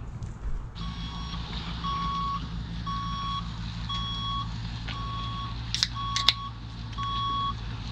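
Electronic alarm beeping steadily, about one half-second beep each second, starting about a second in, over a low steady engine hum. Two sharp clicks just after the middle.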